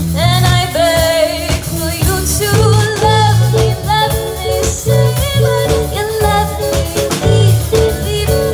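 Live pop-rock band playing: a female lead vocalist singing over drum kit, bass guitar, electric guitar and a Roland Juno-DS keyboard.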